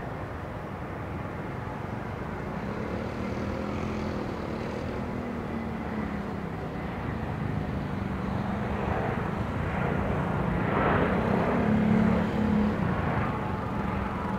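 Eurowings Airbus A320's jet engines running as the airliner rolls along the runway. A steady rumble with a low, slightly wavering hum grows louder and peaks a few seconds before the end.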